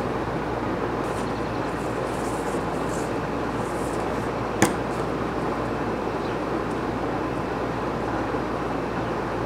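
A thrown knife hitting the upright wooden board target: one sharp thunk about four and a half seconds in, over a steady rushing background noise.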